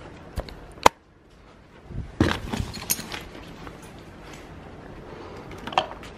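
Handling noise from belongings being grabbed in a hurry: two sharp clicks in the first second, then a clatter of knocks and rustling about two seconds in, and another short knock near the end.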